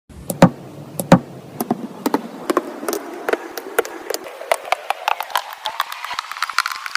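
A run of sharp, irregular clicks and taps of small hard objects, two louder knocks in the first second and a half, then coming faster and lighter toward the end.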